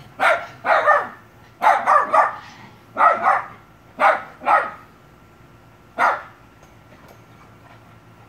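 Dog barking excitedly in quick runs of two or three sharp barks, the last about six seconds in.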